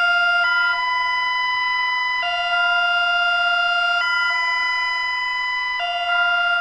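Electronic emergency alert tone: a loud chord of several steady pure tones that switches back and forth between two pitches about every two seconds, then cuts off abruptly.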